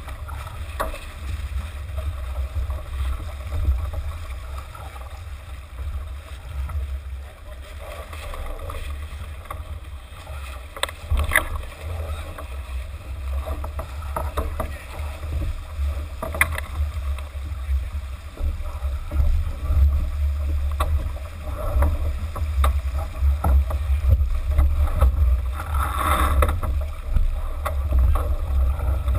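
J/80 sailboat under way: wind rumbling on the microphone and water rushing along the hull, with a few sharp knocks from the boat's gear.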